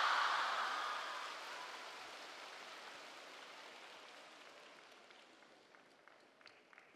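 Arena audience applauding a won point in a table tennis match; the clapping is loudest at first and dies away over several seconds. A few faint clicks come near the end.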